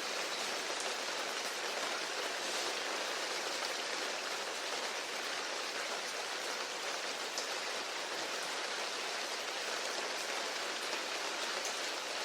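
Steady, gentle rainfall: an even hiss of rain with faint scattered drop ticks.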